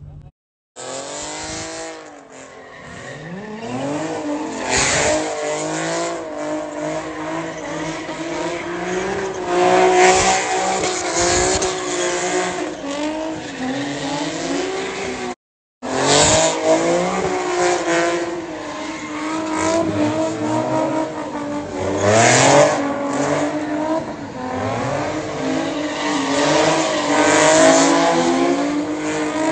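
Nissan 350Z's V6 revving up and down hard during a burnout, with tyres squealing throughout. The sound cuts out briefly twice, once just after the start and once about halfway.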